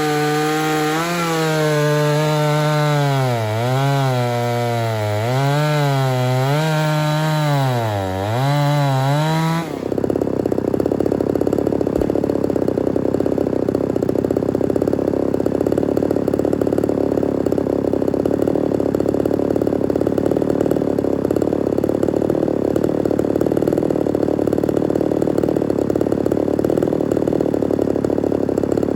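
Ported Homelite Super XL-130 two-stroke chainsaw cutting wood, its engine speed sagging under load and picking back up about every two seconds. About ten seconds in, the sound changes abruptly to a steady, dense running drone.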